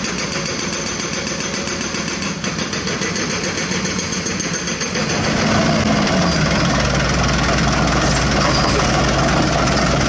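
Diesel engines of heavy construction machinery (dump truck and excavators) running steadily; about five seconds in the sound gets louder, with a stronger steady low drone.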